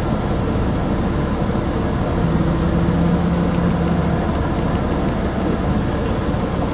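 Semi truck's diesel engine running at low speed during slow manoeuvring, heard from inside the cab as a continuous low rumble. A steady low hum stands out for about two seconds in the middle.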